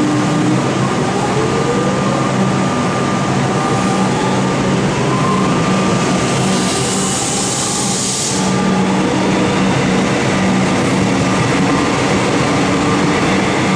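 Electric suburban train pulling out of an underground station platform: its traction motors whine, rising in pitch as it speeds up, over the steady running noise of the carriages. A burst of hiss comes about seven seconds in.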